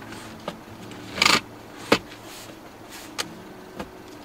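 Mechanical clicks from a car's driver-seat adjustment lever being worked by hand: a short rattling burst a little over a second in, a sharp click just after, and a few lighter clicks later, over a steady low hum.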